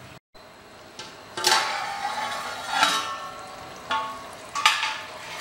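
Metal clanking against an aluminium cooking pot: four sharp strikes about a second apart, each ringing briefly, as the metal lid comes off and a spoon works the curry. Under them is a faint steady hiss of the curry cooking, and the sound drops out for a moment near the start.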